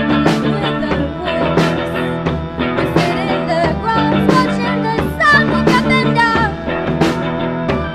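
Live rock band playing: electric guitar, a Nord Electro 3 keyboard and a drum kit keeping a steady beat. A woman's voice sings over them about halfway through.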